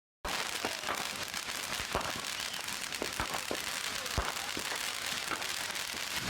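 Fireworks going off: a dense, continuous crackle with repeated sharp bangs, starting suddenly about a quarter of a second in.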